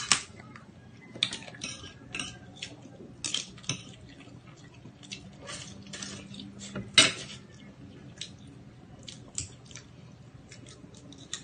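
Crab and shrimp being eaten by hand: scattered clicks and cracks of shells being broken and picked apart, with shells knocking on plates and bowls. The sharpest crack comes about seven seconds in.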